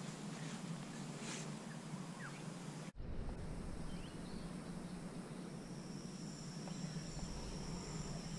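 Faint outdoor ambience with a few short bird calls, broken off by an abrupt change in the background about three seconds in. After that a steady, high-pitched insect trill, like crickets, comes in and runs on.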